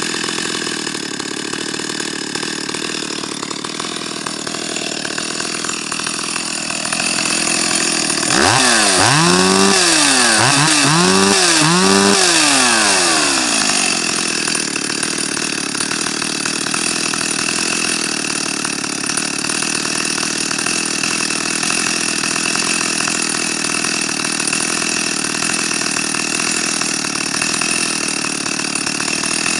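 Stihl 028 AV Super two-stroke chainsaw engine idling steadily. About eight seconds in it is revved up in four quick throttle blips over about five seconds, then drops back to idle.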